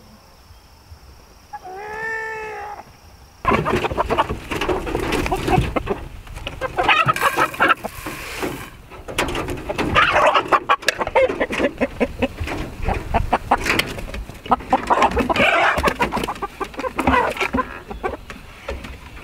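Chickens clucking and squawking close by, many short calls overlapping, mixed with knocks and rustling, loud from about three and a half seconds in; before that a single drawn-out call that rises and falls.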